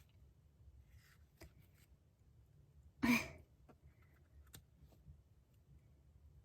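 Quiet handling of a glossy magazine's pages, with faint taps and rustles. About three seconds in, one short, louder throaty sound cuts in.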